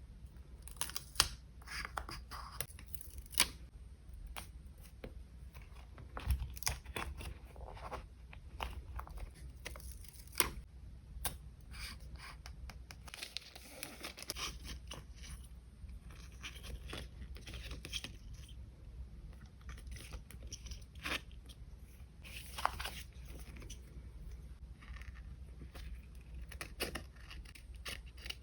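Paper and sticker sheets being handled for a journal collage: rustling and tearing, with scattered sharp clicks and taps.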